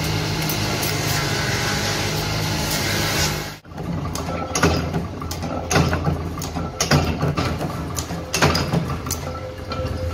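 Motor-driven grinding wheel running steadily while a steel spoon blank is held against it, a dense grinding noise over a low hum. After a sudden break about three and a half seconds in, a mechanical power press hums, with sharp metallic clanks and clicks at irregular intervals as steel spoon blanks are fed into its die.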